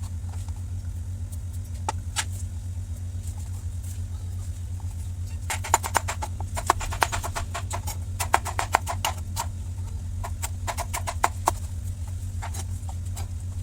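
Knife chopping on a cutting board, a few scattered cuts and then a fast run of sharp knocks from about five seconds in to about twelve, over a steady low hum.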